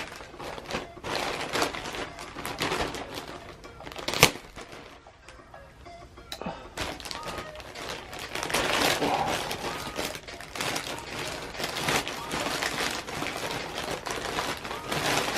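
Rustling and handling of a shipping package and plastic bag as it is opened, with irregular crinkles and knocks and one sharp click about four seconds in.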